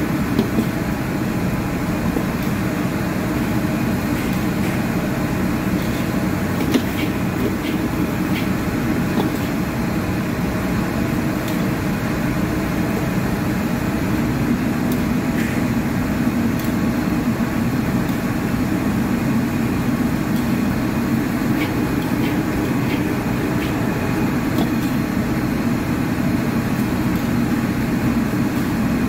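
Commercial gas wok burner running with a steady low roar, mixed with running water and kitchen extraction noise. A few light clicks of a utensil against the carbon-steel wok, one sharper knock about seven seconds in.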